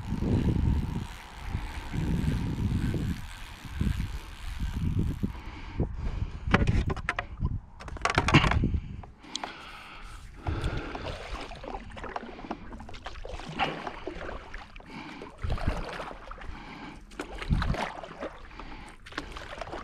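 Wind rumbling on the microphone for the first few seconds, then irregular water sloshing and knocks around a stand-up paddleboard.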